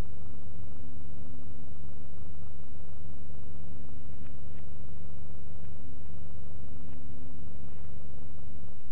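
A steady low hum with hiss, unchanging throughout, with a few faint ticks in the middle.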